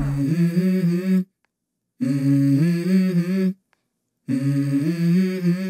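Background music: a wordless, hummed vocal melody in three short phrases, each broken off by a moment of complete silence.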